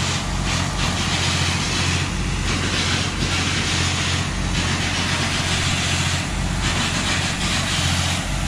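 Hitachi EX3600 mining excavator's large diesel engine running steadily, a deep even drone under a loud rush of air that swells briefly every second or two.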